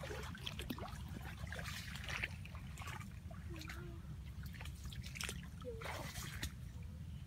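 Water splashing and trickling, with irregular crackles of leaves and branches brushing close by, and a few faint voice sounds.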